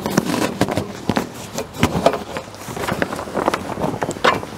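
Stiff awning fabric rustling and crinkling in uneven scrapes and flaps as it is pulled and fed into the awning's roller tube.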